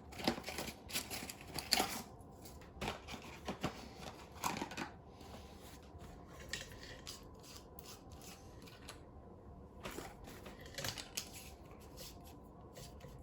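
Scattered clicks, taps and rubbing from hands handling compact fluorescent light bulbs, busier in the first few seconds and again near the end.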